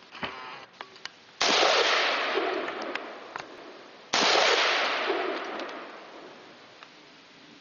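Two shots from an AR-15 rifle firing steel-cased ammunition, about three seconds apart, each with a sudden onset and a long fading echo. A few light clicks come before the first shot.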